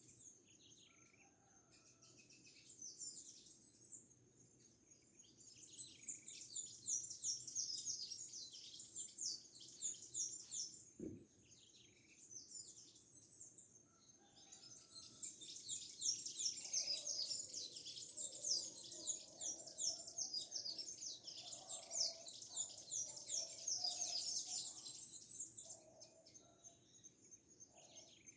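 Birds chirping in rapid, high, falling notes, in two long bouts of dense twittering: one about six seconds in, and one from about fourteen seconds until shortly before the end. A single sharp click comes a little before the middle.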